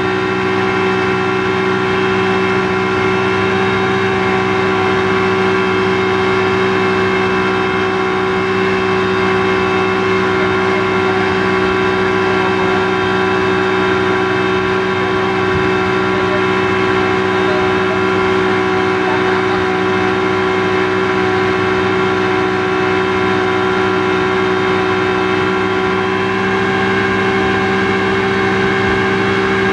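Speedboat engine running at a steady speed, heard from on board: a constant, even drone that holds one pitch throughout.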